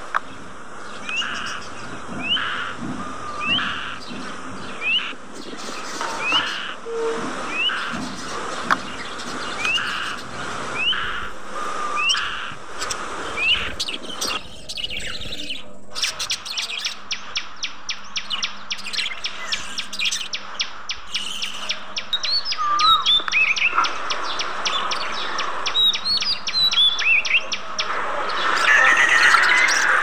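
Budgerigars calling: a regular run of short rising chirps at first, then, about halfway through, a busier chatter of many budgies with fast ticking and overlapping chirps.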